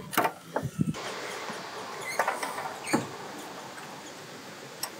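Scattered sharp clicks and light scraping of hands working metal parts around an engine's exhaust manifold and heat shield, over a steady hiss.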